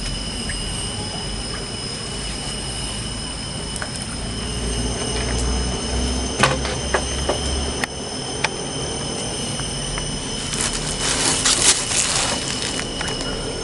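Steady outdoor background with a constant high-pitched whine and a low rumble, broken by a few sharp clicks and a short burst of rustling noise near the end.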